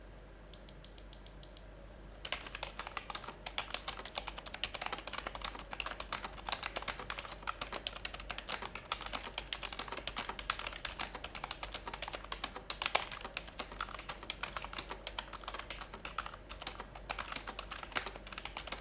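Typing on an HP K500Y membrane keyboard as a sound test. It opens with a short, even run of rapid key taps, then goes into fast, continuous typing from about two seconds in.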